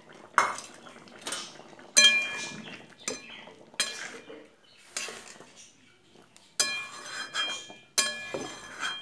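Steel spatula stirring a curry in a metal kadai, knocking and scraping against the pan in about ten short metallic clinks that ring briefly, with a short lull around the middle.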